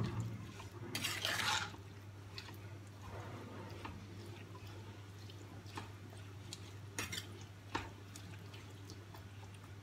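Steel ladle stirring wet, spice-coated boiled chickpeas and tamarind pulp in a kadai: soft wet squishing with a few scrapes and clinks against the pan. The loudest stretch comes about a second in. A steady low hum runs underneath.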